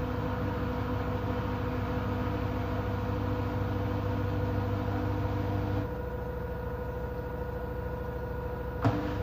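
LG F13D9NC front-loading washing machine in an intermediate spin, the drum and direct-drive motor running fast with a steady whine. A lower hum cuts out about six seconds in, and a short sharp click comes near the end.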